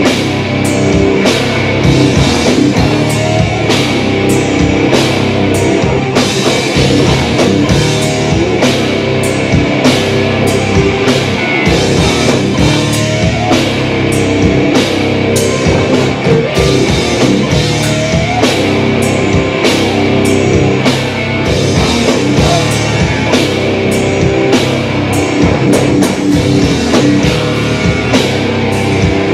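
Rock band playing live at a loud, steady level: electric guitars, bass guitar and drum kit, with regular drum hits.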